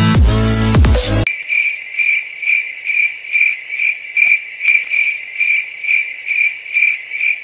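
Electronic intro music cuts off about a second in, giving way to a cricket chirping at a steady pace, about two high-pitched chirps a second.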